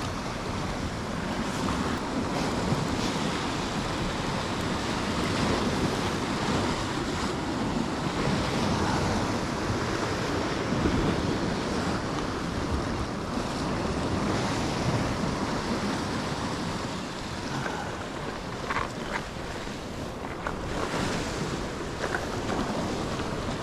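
Sea surf washing against a rocky shore, with strong wind buffeting the microphone.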